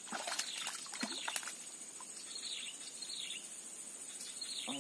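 Outdoor ambience of a bird giving a short falling call repeated every half second or so over a steady high-pitched insect drone, with a few sharp clicks in the first second and a half.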